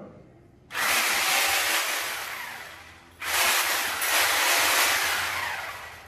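Handheld corded angle grinder switched on twice in short bursts. Each burst starts suddenly and dies away as the disc winds down.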